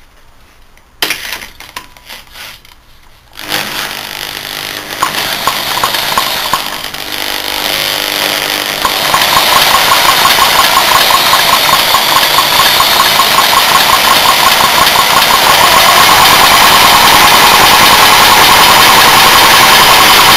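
Small single-cylinder Briggs & Stratton petrol engine starting: a sudden burst about a second in and a few uneven knocks, then it catches and picks up speed into a steady, loud, evenly firing run.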